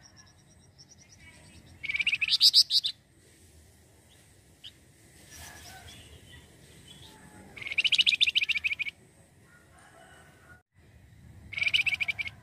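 Flamboyan (wergan jawa, Javan fulvetta) singing: three loud, fast, chattering runs of high notes, each about a second long, about 2 s, 8 s and 11.5 s in.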